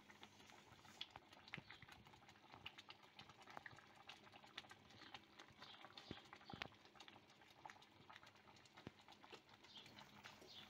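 Chicken stew simmering in a clay pot: faint, irregular bubbling and popping of the broth.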